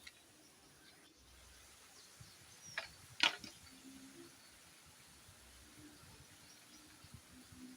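Two sharp knocks about half a second apart, the second much louder, over a quiet outdoor background with a faint, broken low hum.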